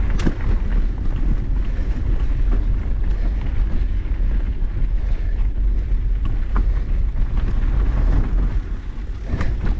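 Mountain bike riding over a rocky trail: tyres rolling on rock and dirt, with a few sharp clicks and knocks from the bike, under a steady rumble of wind on the microphone.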